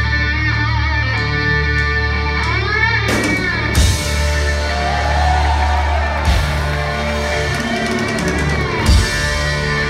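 Progressive metal band playing live, heard from the audience: sustained electric guitar lines with bent notes over a steady low bass, the whole band with cymbals coming in about three seconds in, followed by a few heavy accented hits.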